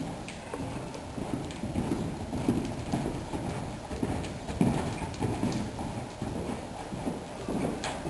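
Hoofbeats of a red roan draft-cross horse cantering on the soft dirt footing of an indoor arena: dull, low thuds repeating with each stride in a rolling rhythm.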